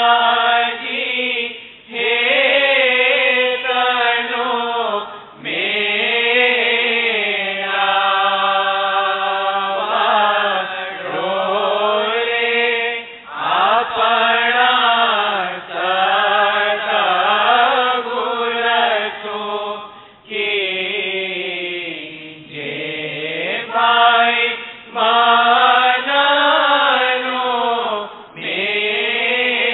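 Devotional chanting: a voice intoning a slow melody in long phrases a few seconds each, with the pitch gliding up and down and short breaks for breath between phrases.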